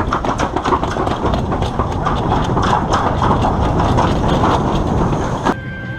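Toboggan sled rumbling and rattling as it runs fast down a stainless steel slide chute. It cuts off abruptly about half a second before the end.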